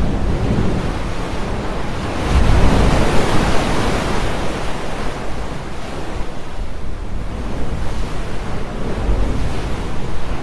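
Water splashing and washing in repeated swells, the loudest surge starting about two seconds in and slowly dying away, with a smaller surge near the end.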